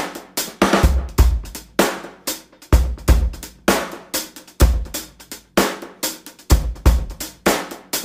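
Background music: a steady drum-kit beat with kick drum, snare, hi-hat and cymbals, a strong kick about once a second.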